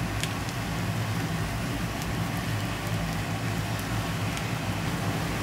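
Potato batter frying in shallow hot oil in a frying pan: a steady sizzle with a few sharp pops of spitting oil, over a low steady hum.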